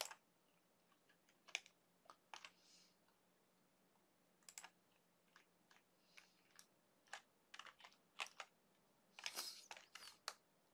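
Faint, irregular clicks of a computer mouse and keyboard keys, about a dozen separate taps with a short flurry near the end.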